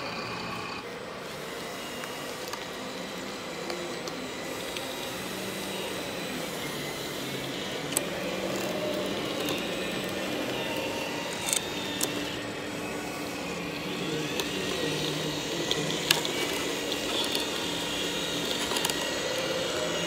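Radio-controlled model Cat road roller's electric drive and gears whirring in a steady hum, with a few sharp clicks scattered through.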